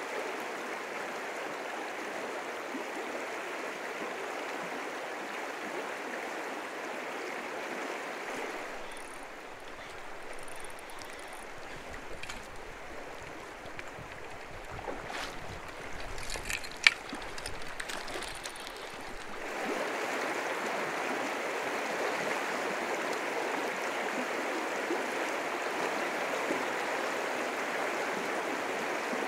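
A mountain creek flowing with a steady rushing sound. For about ten seconds in the middle the water noise is quieter, with a few light clicks and one sharp tap about 17 seconds in.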